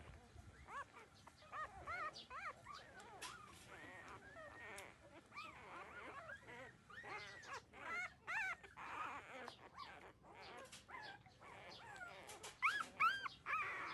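Thirteen-day-old puppies whimpering and squeaking: many short, high cries that rise and fall, coming one after another, with a few louder cries near the end.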